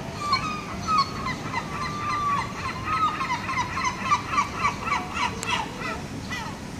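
Gulls calling: a few drawn-out cries, then a quick run of short repeated notes at about four a second, over a steady low hum of city traffic.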